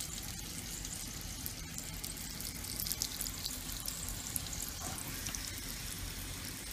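A tortilla sizzling in a hot frying pan, a steady hiss with fine crackling.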